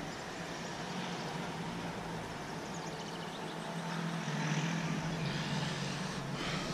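Shallow creek water running steadily, with a low, steady motor drone under it that grows louder about four seconds in.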